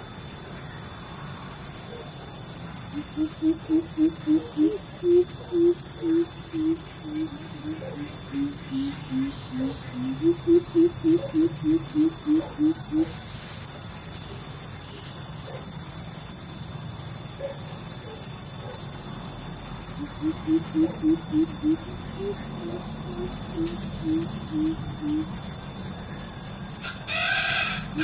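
Coucal calling with its deep hooting song: runs of about six to ten low, evenly spaced 'hoop' notes at roughly four a second, one run falling in pitch, repeated several times with pauses between. A steady high-pitched whine sits behind it throughout.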